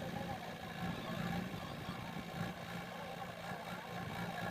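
JCB 3DX backhoe loader's diesel engine running steadily at a constant low speed.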